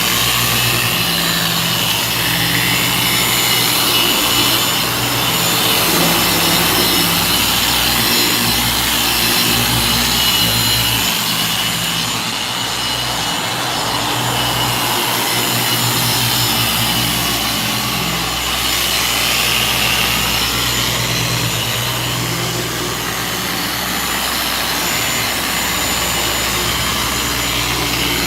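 Polishing machine running with a wool cutting pad on car paint: a steady motor hum under a constant rubbing hiss.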